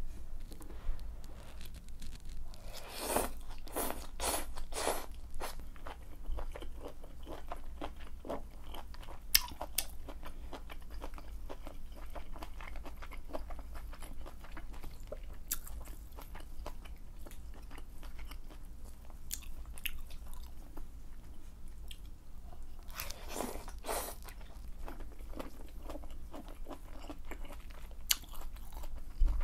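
Close-miked eating of malatang: wet chewing and mouth sounds throughout, with bursts of quick noodle slurping a few seconds in and again about three-quarters of the way through.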